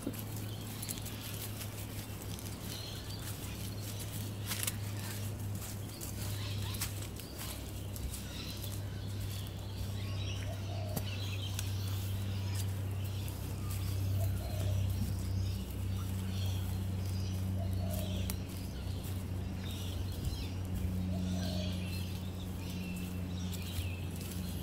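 Birds chirping and calling in bushland, with short lower calls every few seconds. A steady low hum runs underneath, with scattered light clicks.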